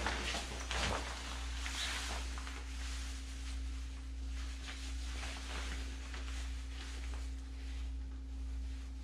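Fabric rustling as a soft, waterproof-feeling trench coat is pulled on and settled, loudest in the first couple of seconds and fainter after, over a steady low electrical hum.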